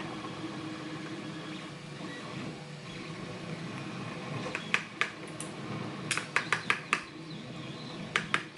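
Short sharp metal clicks and taps of a pin-tumbler lock being taken apart by hand, starting about halfway through and coming in quick clusters toward the end, over a steady low hum.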